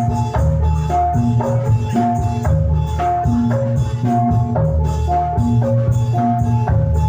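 Javanese gamelan music for jathilan played loudly through a sound system: metallophone notes repeat a short melodic pattern over heavy drum and bass.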